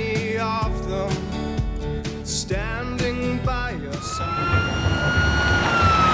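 Music for the first four seconds. Then a siren comes in: one tone that holds and slowly falls in pitch.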